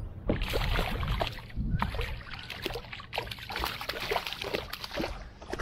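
Hooked bream splashing at the water surface beside a kayak as it is played in, a run of irregular splashes and sloshes.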